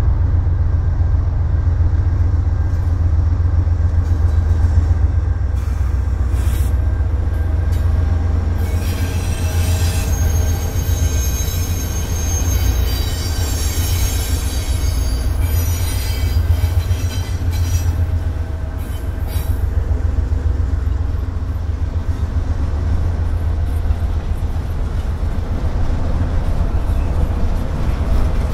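Diesel locomotives of a freight train passing with a steady, deep engine rumble. High-pitched wheel squeal joins in from about nine to sixteen seconds in.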